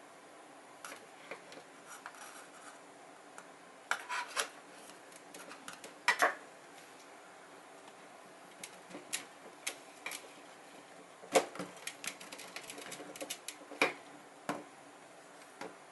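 Metal spoon scraping and clinking against an aluminium mess tin and a bowl, prying up cooked rice and the scorched crust stuck to the tin's bottom. Irregular scrapes and taps, the loudest about eleven seconds in.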